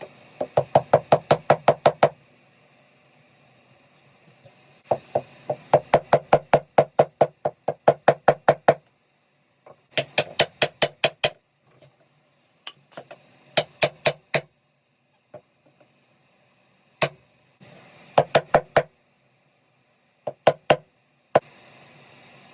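Runs of rapid hard knocks, about seven a second, in bursts of one to two seconds, with a few single and paired knocks between them. Each burst starts and stops abruptly.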